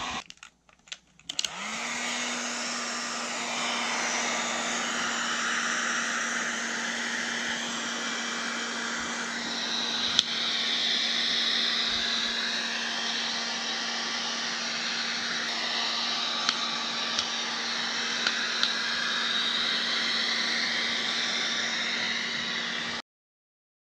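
Hand-held hair dryer drying a corgi's coat. It starts up about a second and a half in, its hum rising as the motor spins up, then blows steadily, the rush of air changing in tone as it is moved about the fur. It cuts off suddenly near the end.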